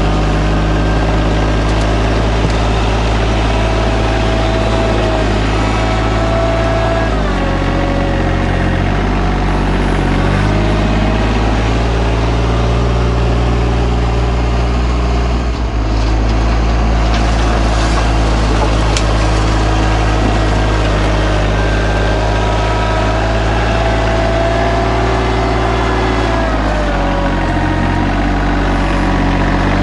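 RK24 subcompact tractor's 24-horsepower diesel engine running under load as its front loader bucket scrapes up sod and dirt, with a higher whine that rises and falls. The engine note sags twice, about a quarter of the way in and near the end, as it takes the load.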